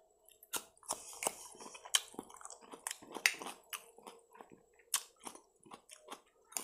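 Close, wet chewing of a mouthful of fried rice with raw cucumber, with irregular crisp crunches and mouth clicks, several sharp ones in the first half and more scattered through the rest, picked up by a clip-on microphone close to the mouth.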